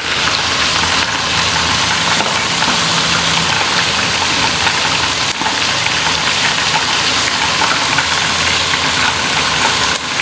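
Chicken pieces deep-frying in hot oil in a pot: a steady, loud sizzle with dense crackling.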